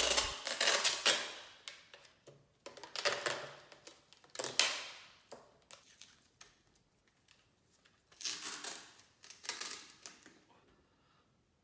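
Painter's masking tape being pulled off the roll and torn, in several short noisy pulls, the last two near the end, among rustling of thin plastic sheet.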